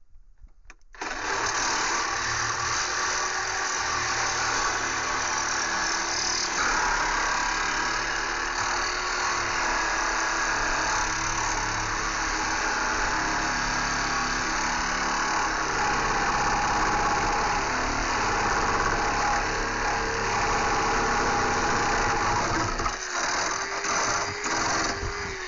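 Corded reciprocating saw cutting through a metal hurricane bracket on a deck joist. It starts about a second in and runs steadily at full speed, with a short stop near the end before it cuts again.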